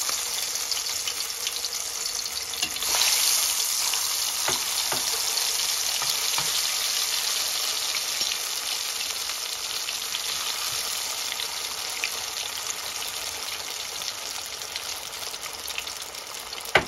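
Masala-coated potato pieces deep-frying in hot oil in a pot: a steady high sizzle with scattered small crackles, swelling louder for a moment about three seconds in. The vigorous bubbling shows the oil is hot enough to fry. A single sharp tap near the end.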